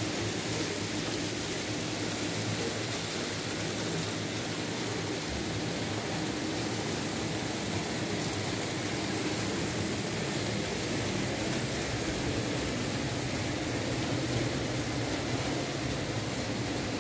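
Märklin H0 model train running on the layout: the locomotive's motor and the wheels on the rails give a steady running noise with a low hum.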